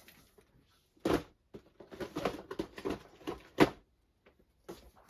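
Cardboard model-kit boxes being handled and set down: a string of irregular knocks and rustling, with a sharp knock about a second in and the loudest about three and a half seconds in.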